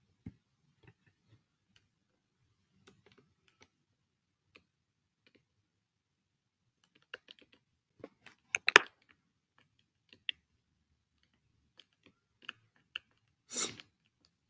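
Scattered computer keyboard and mouse clicks, with a quick run of louder clicks about eight seconds in and a short noisy burst near the end.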